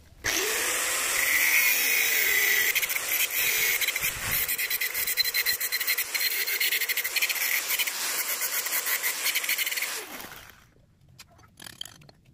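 Electric angle grinder with an abrasive disc grinding a small steel part clamped in a bench vise: the motor spins up, a loud grinding noise with a fast chatter over the motor's whine runs for about ten seconds, then the grinder is switched off and winds down. A few light metal clicks follow near the end as the part is handled in the vise.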